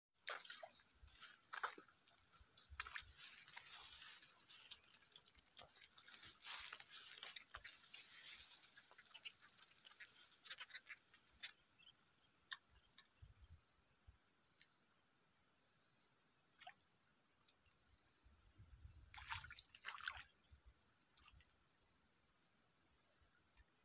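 Insects shrilling in the grass: a steady high-pitched drone that, about halfway through, gives way to quick rows of repeated high chirps, with scattered soft clicks and rustles.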